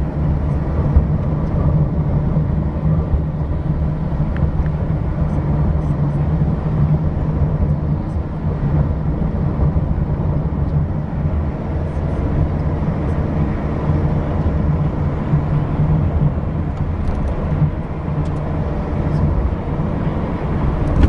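Car driving along a road: steady engine and tyre rumble.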